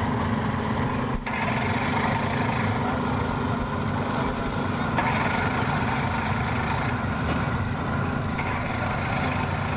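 Boat engines idling as boats move slowly around a ramp dock: a steady low hum that drops briefly about a second in.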